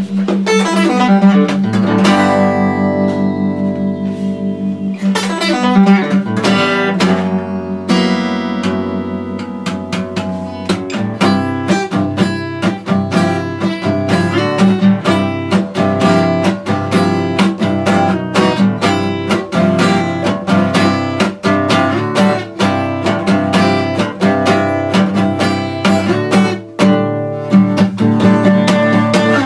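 Martin 000M steel-string acoustic guitar played with bare fingers and no pick, swept and strummed. A few ringing chords come first, then from about ten seconds in a steady, fast strum.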